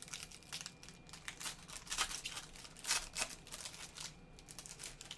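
Trading card pack wrapper being torn open and crinkled, an irregular run of crackles and rustles, the sharpest about two and three seconds in.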